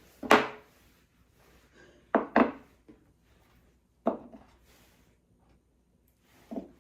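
Kitchen items being handled: five separate knocks and clatters at irregular intervals, the first the loudest and two close together about two seconds in.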